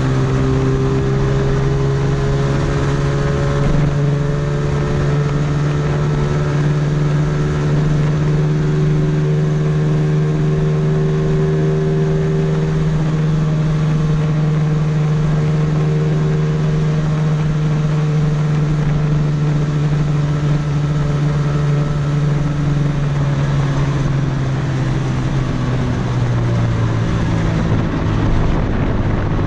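Quadcopter's electric motors and propellers whining steadily, picked up by the camera mounted on the drone, with rushing air noise. The pitch drops near the end.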